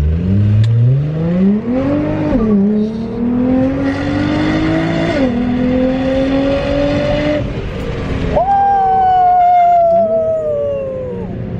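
Nissan GT-R under full-throttle acceleration, heard from inside the cabin with the window open. The engine note climbs in pitch and drops three times as it shifts up through the gears, then from about two-thirds of the way in a single falling note as the car slows.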